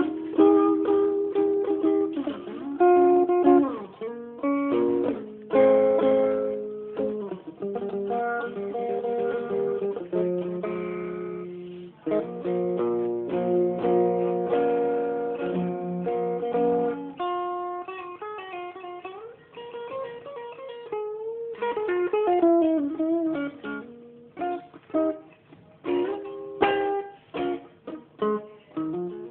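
Guitar music: plucked chords and picked notes that ring for the first half, then give way to shorter, separate plucked notes.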